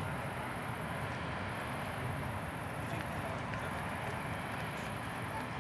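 Steady background hum of distant city traffic, with no distinct events.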